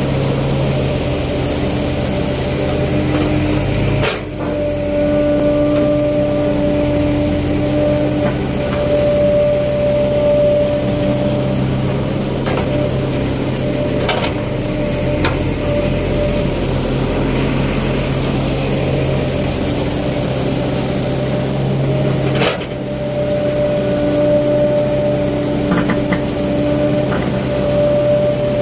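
Sumitomo S265 hydraulic excavator's diesel engine running steadily, with a steady hydraulic whine over it and a few knocks as the bucket digs and dumps soil.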